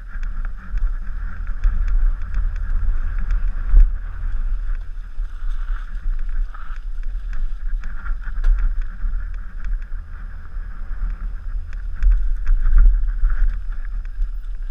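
Downhill mountain bike riding fast over a dirt trail: steady wind rumble on the microphone with many scattered sharp clicks and knocks from the bike rattling over the ground.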